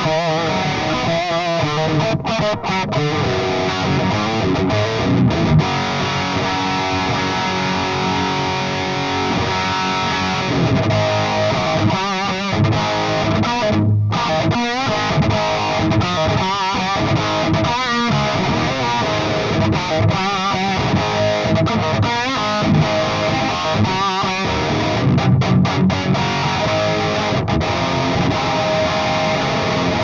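Electric guitar played through the Trooper Electronics OverRider preamp pedal's overdrive channel with the gain turned up, giving a distorted hard-rock tone. Picked riffs and lead lines run throughout with only brief stops, and there is vibrato on the held notes.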